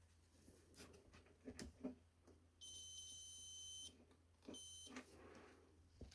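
Continuity tester buzzer giving a high, steady electronic beep for about a second, then a second short beep, as the probes make and lose contact through the heater's power cord. Small handling clicks and knocks come before and after.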